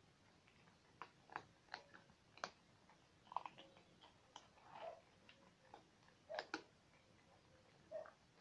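Domestic cats eating from a plastic bowl. Faint, irregular clicks and crunches of chewing and mouthing food, a few scattered each second.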